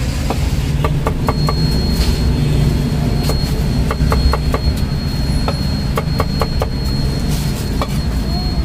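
Cleaver chopping cucumbers on a thick wooden chopping block: irregular sharp knocks, about two a second, over a steady low rumble of street traffic.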